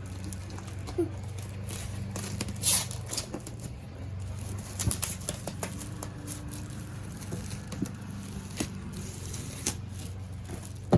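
Cardboard subscription box being opened and its packaging handled: scattered clicks and rustles over a steady low hum.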